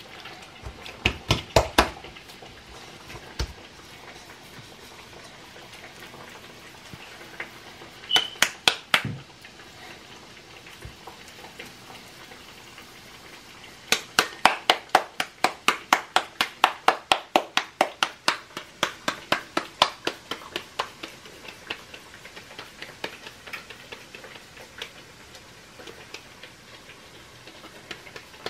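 Hands patting a ball of masa dough back and forth between the palms to flatten it into a gordita: short runs of sharp slaps near the start and about eight seconds in, then a long even run of about three or four pats a second that grows fainter toward the end.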